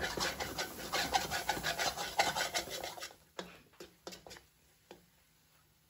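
A metal spoon scraping and stirring thick masala paste around the bottom of a metal karahi in quick strokes, stopping about three seconds in; a few light taps follow, then it falls nearly quiet.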